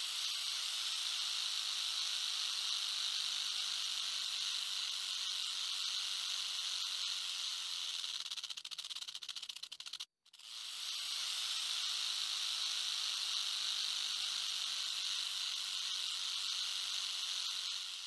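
A snake's long, steady hissing buzz. It flutters and breaks off about ten seconds in, then starts again.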